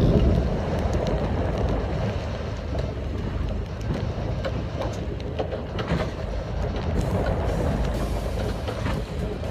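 Fishing boat's engine running with a steady rumble, mixed with the rush of its wake water.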